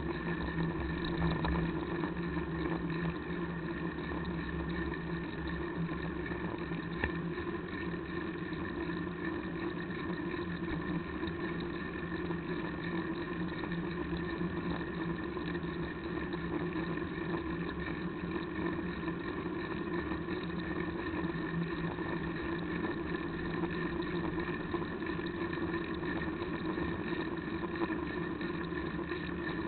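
Street traffic heard from a moving bicycle: a steady hum and rumble, heavier for the first few seconds while an articulated bus goes by close alongside. One short click about seven seconds in.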